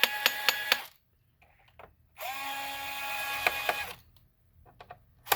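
Power screwdriver backing out screws from the robot vacuum's base plate in three short runs of steady motor whine, each rising quickly in pitch as it starts. Sharp clicks sound during the runs, the clicking that means a screw has come all the way out.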